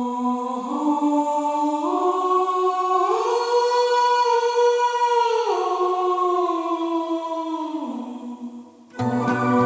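Background music: sustained, choir-like hummed chords that step upward, hold, then step down and fade. About nine seconds in, a fuller section with a steady beat comes in.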